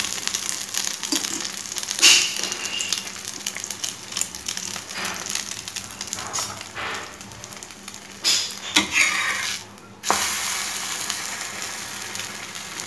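Egg-dipped bread slice frying in oil on a cast-iron dosa tawa: a steady sizzling crackle with a few louder spits. The sizzle drops away briefly about ten seconds in, then comes straight back.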